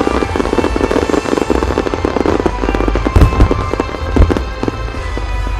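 Starmine fireworks display: a rapid, dense crackle of shells launching and bursting across a wide front, with two heavier booms about three and four seconds in. Music plays underneath.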